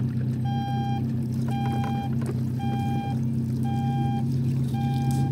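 An electronic beeper sounding five evenly spaced beeps, about one a second, each lasting about half a second, over a steady low hum.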